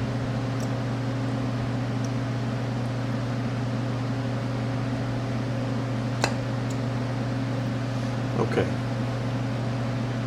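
Steady mechanical hum from a fan or similar running machine in the workshop, with a single sharp metal click about six seconds in as a small spring clip is worked off with pliers.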